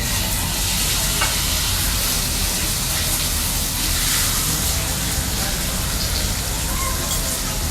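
A5 Japanese Wagyu ribeye steak sizzling steadily as it sears in its own rendered fat, with no added oil, with a few faint crackles.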